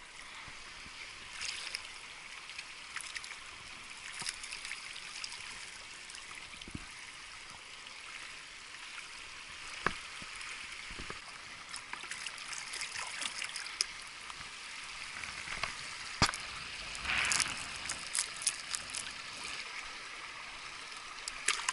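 Water trickling and splashing as a cast net is hauled out of shallow muddy water, with scattered sharp splashes and clicks. A louder rush and a quick run of clicks come a few seconds before the end, as the net and fish are handled.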